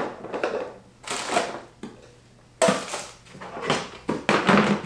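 Plastic storage tote being packed: containers knocked and shuffled about inside the plastic bin, then its plastic lid handled near the end, in a series of short clattering, rustling bursts with quieter gaps between.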